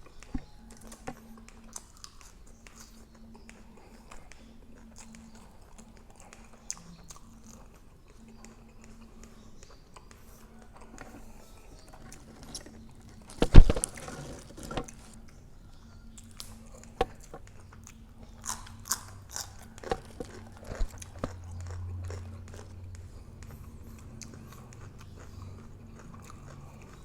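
Close-up chewing and crunching of crispy grilled pork neck, with scattered sharp crunches and clicks. A single loud knock about halfway through.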